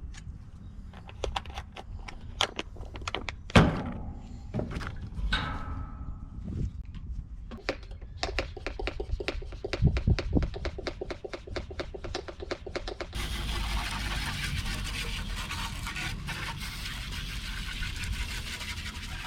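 Hands-on cleaning noises on a metal furnace blower housing: knocks and clicks, then a fast, even scrubbing rhythm, then a steady hiss that starts abruptly about two-thirds in.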